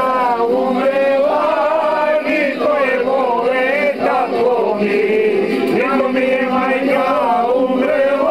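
A group of voices, mostly men's, singing together loudly, with long held, wavering notes.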